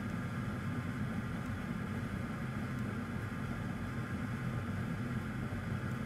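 Steady low hum and hiss of background machinery, even throughout with no distinct events.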